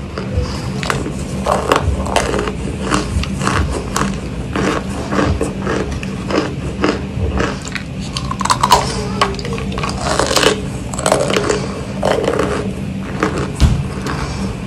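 Chunks of compressed cornstarch being bitten and chewed close to the microphone: a rapid, irregular run of crisp crunches.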